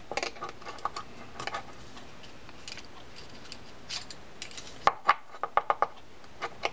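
Small metal clicks and scraping as a pick tool works inside a Shimano Sustain 3000 spinning-reel spool, pushing out the drag stack. Scattered light ticks come first, then a quick run of sharper clicks about five seconds in.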